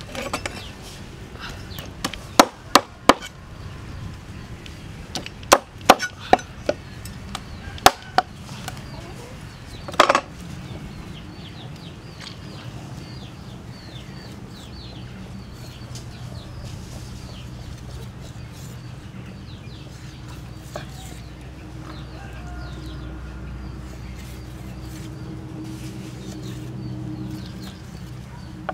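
Kitchen knife chopping through a catfish onto a thick wooden chopping block: about ten sharp chops in the first ten seconds, then quieter cutting for the rest.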